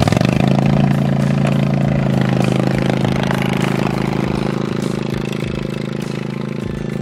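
Zero-turn riding lawn mower engine idling steadily, with no change in pitch, getting slightly quieter toward the end.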